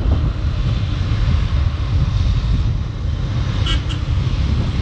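Motorcycle riding at road speed: its engine runs steadily under heavy wind noise on the rider's microphone.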